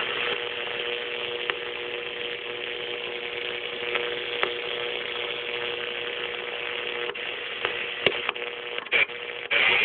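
Uniden PRO538W CB radio's speaker hissing with receiver static and a steady two-note whistle on an open channel; the whistle stops about seven seconds in. Then a few sharp clicks and short breaks in the hiss as the channel knob is turned.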